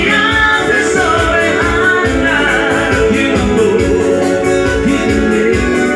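Live band music: a man singing over an electronic keyboard and a steady drum beat.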